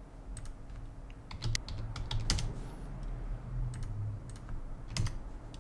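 Irregular clicking from a computer keyboard and mouse, about a dozen sharp clicks with uneven gaps.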